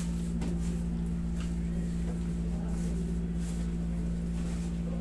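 Steady low hum of a window-type air conditioner running, holding one pitch over a low rumble.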